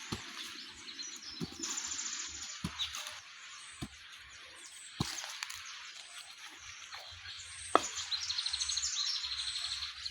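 Birds chirping outdoors, with two rapid high trills, one a couple of seconds in and one near the end. A few sharp knocks come between them, the loudest about three quarters of the way through.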